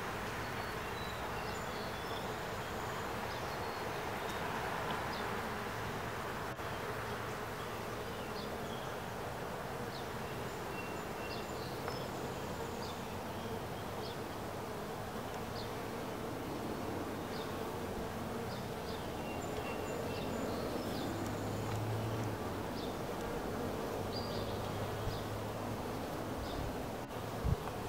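Honeybee workers humming steadily in an open hive, a low even drone that swells at times. A single thump near the end.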